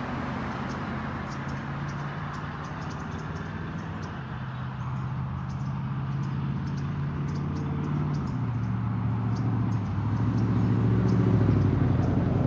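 A vehicle engine running, its low steady hum stepping to a new pitch a few times and growing louder near the end.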